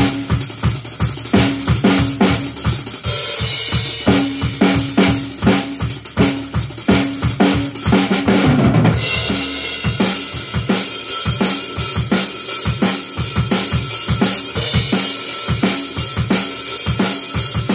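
Acoustic rock drum kit played in a fast, driving beat: dense kick and snare hits under cymbals, with a busier stretch of cymbal wash about eight to nine seconds in.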